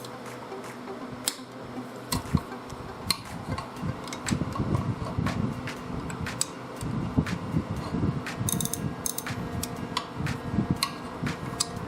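Irregular metallic clicks, clinks and light knocks of tools and engine parts being handled during the disassembly of a seized small engine, over a faint steady hum.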